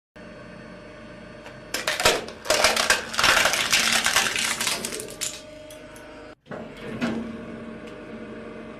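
Hydraulic press crushing an object: a long stretch of dense crackling and snapping over a steady machine hum, a shorter burst of crunching about seven seconds in, then the hum alone.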